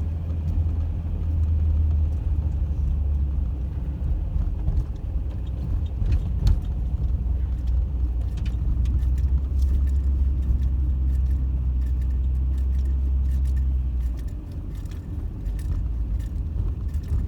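Minivan driving slowly on a snow-covered road, heard from inside the cabin: a steady low engine and road drone with scattered light clicks and rattles. The drone drops off about fourteen seconds in.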